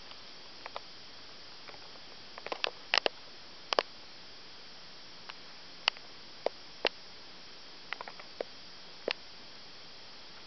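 Sharp, irregular clicks and taps, some in quick clusters, over a steady faint hiss. The loudest come about three to four seconds in, and there is no engine or aircraft sound.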